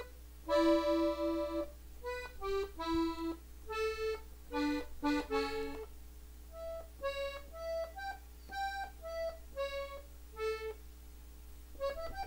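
Gabbanelli three-row button accordion in E played slowly, one note at a time: a run of single treble notes with short gaps between them, stepping up and down in pitch, an ornament run slowed down and taken button by button.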